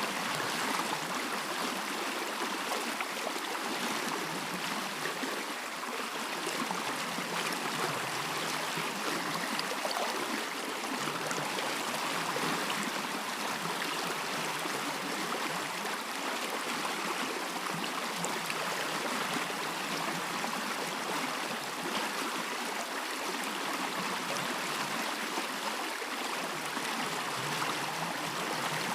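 A stream running over rocks: a steady rush of flowing water with a babbling, trickling texture and no break.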